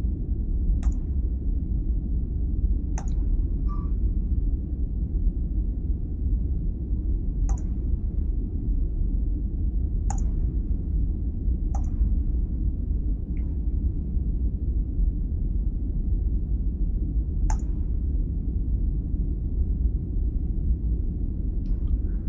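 Computer mouse clicks, about six sharp single clicks spaced irregularly a few seconds apart, over a steady low hum of microphone room noise.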